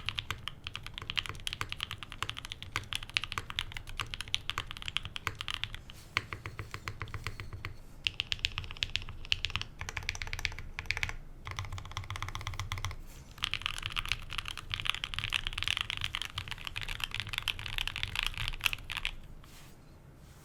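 Continuous typing on a custom Mode65 mechanical keyboard with a POM plate, foam-dampened case and 67g Tangerine linear switches under GMK keycaps: fast runs of keystrokes with short pauses. The typing stops near the end, leaving faint fan noise.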